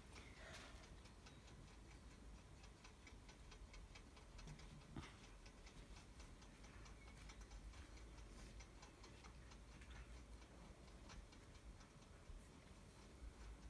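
Near silence, with faint, rapid ticking, several ticks a second.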